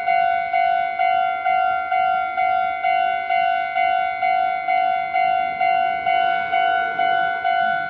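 Japanese railway level-crossing warning bell ringing, the same electronic clang repeated evenly about twice a second at one pitch: the crossing is signalling an approaching train.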